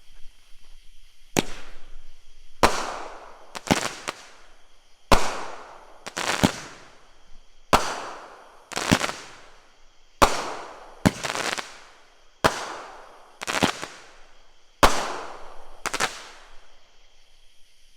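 A 200-gram consumer firework cake firing its six shots: about a dozen sharp bangs spaced a second or so apart, each launch thump followed by its aerial break, each report trailing off.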